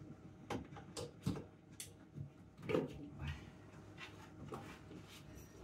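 Faint clicks and knocks of items being handled at a kitchen counter, about seven scattered through the stretch.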